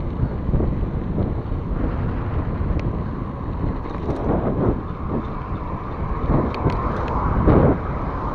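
Wind rushing over an action camera's microphone on a moving mountain bike: a steady low rumble that swells briefly near the end, with a few faint ticks.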